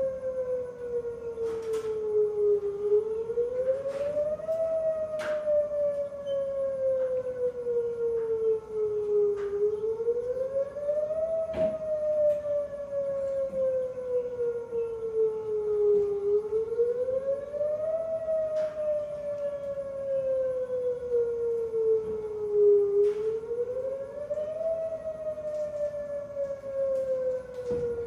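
Whelen 2906 electronic outdoor warning siren sounding its wail test tone. Its pitch climbs quickly and then glides slowly down, repeating about every six to seven seconds. A few faint knocks are heard in the background.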